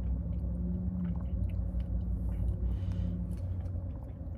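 Sipping a thick smoothie through a plastic straw and swallowing, with a few small mouth clicks, over the low steady rumble of a car cabin. A low held hum stops about three seconds in.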